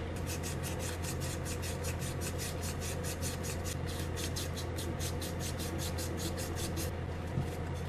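Emery paper rubbed quickly back and forth on the metal pins of a Lambretta TV175 disc brake hub, sanding the paint off them in rapid, even strokes several times a second that stop shortly before the end.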